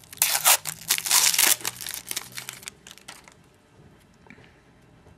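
Trading-card pack wrapper being torn and crinkled by hand, in a dense run of rustles for about the first two and a half seconds, then only faint handling rustles.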